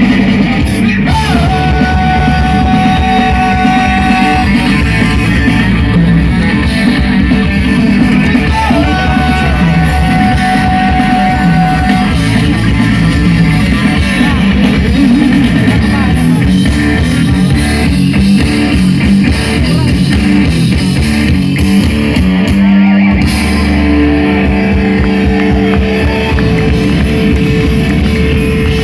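Loud rock music with guitar and drums, with two long held notes, one near the start and one about nine seconds in.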